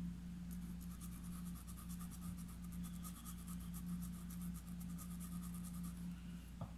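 Paintbrush scratching and dabbing on cloth stretched in an embroidery hoop: a quick run of faint, short, scratchy strokes over a steady low hum.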